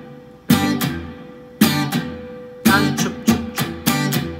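Electric guitar strummed in a strum-and-mute rhythm: ringing chord strokes, each followed quickly by a short, sharp muted scratch stroke as the picking hand goes slack. The strokes come about once a second at first, then faster and closer together from about three seconds in.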